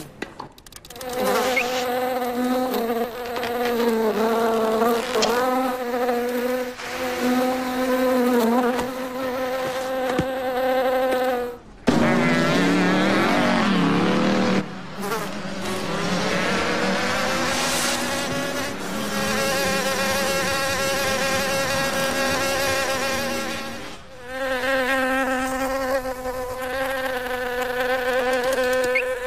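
Cartoon insect buzzing: a sustained wing drone that wavers and bends in pitch. About twelve seconds in it breaks into a lower, sliding buzz, then a different buzz, and the first drone comes back near the end.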